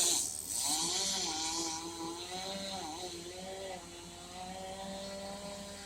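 Chainsaw engine running at high revs, its pitch dipping briefly about half a second in and again around three seconds in, as it would when the chain bites into the wood.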